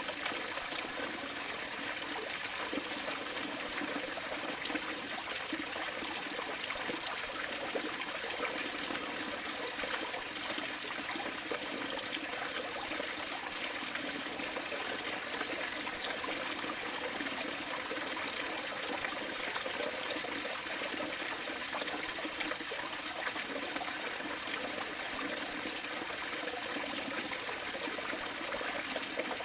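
Steady flowing water, a trickling stream, running on without a break.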